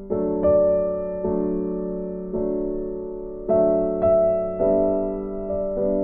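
Soft background piano music: slow notes and chords struck every half second to a second, each left to ring and fade.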